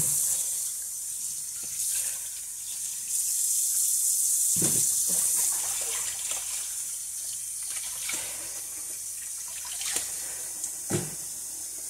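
Kitchen tap running in a steady stream into a basin of water while raw chicken is rinsed by hand, with a few splashes and sloshes as the pieces are handled in the water.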